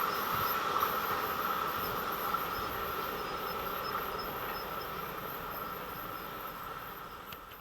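Passing train's wheel and running noise on the rails, fading steadily as it moves away, then cutting off abruptly at the end.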